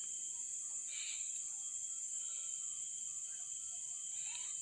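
Quiet background with a steady high-pitched trill, and faint short tones coming and going through it.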